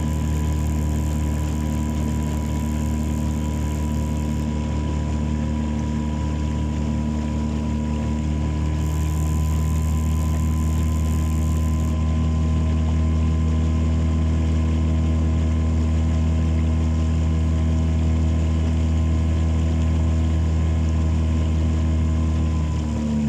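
Boat engine running steadily at cruising speed, then throttled down right at the end.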